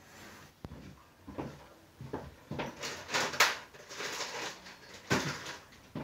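Handling noise: a string of irregular light knocks and scrapes, busiest in the second half.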